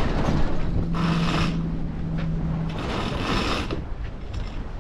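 Wind buffeting the microphone and water rushing along the hull of a sailboat under way, with two surges of splashing about a second in and again after three seconds. A low steady hum sounds from about half a second in for roughly two seconds.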